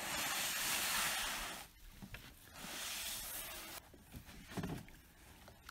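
A loaded Saranac canoe's hull scraping over grass and sand as it is shoved into the lake, in two long scrapes about a second and a half each, with a few light knocks after.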